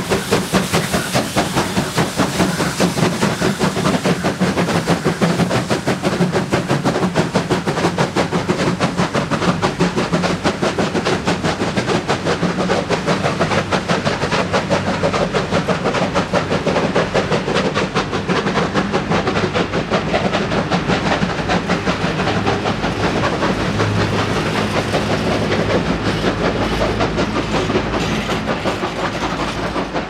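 Steam locomotive working hard at the head of a heavy freight train, its exhaust beating rapidly and growing more distant, while loaded hopper wagons roll past with their wheels clicking steadily over the rails.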